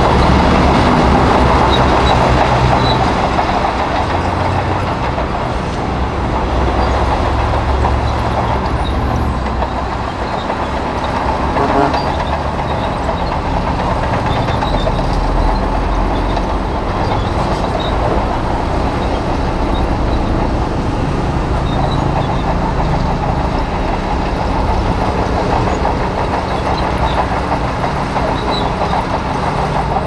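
Shantui DH crawler bulldozer's diesel engine running steadily under load as it pushes sandy soil with its blade, with the clatter of its steel tracks.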